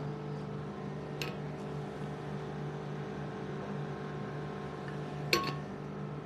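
A steady low hum with two brief clicks, one about a second in and one about five seconds in.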